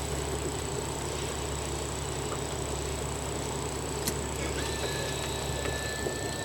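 Steady low hum of a fishing boat's engine running, with a single sharp click about four seconds in and a thin high tone starting soon after.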